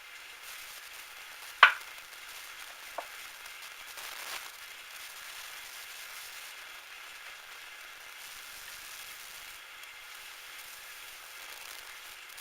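Metal lathe at work, a steady hiss with a sharp metallic click about a second and a half in and a smaller click a little later.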